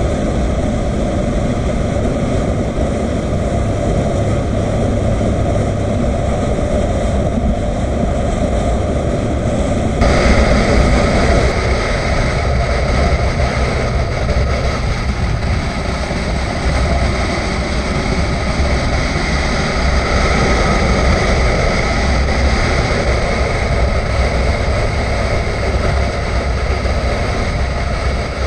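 Motorcycle engine running at road speed with wind noise on the microphone. The sound changes abruptly about ten seconds in.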